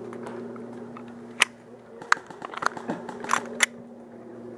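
A few scattered, irregular sharp clicks and snaps over a steady low hum.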